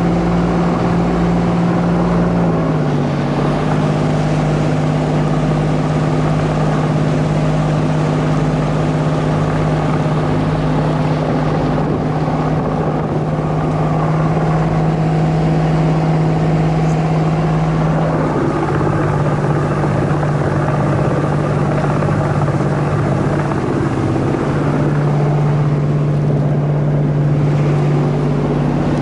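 Fishing boat's engine running steadily under way, a constant hum over the wash of water; its pitch drops slightly about three seconds in and shifts again later.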